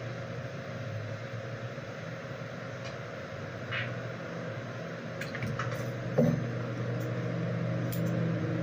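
A steady low hum with a few faint clicks of grooming scissors snipping around a small dog's face. A slightly louder knock comes about six seconds in.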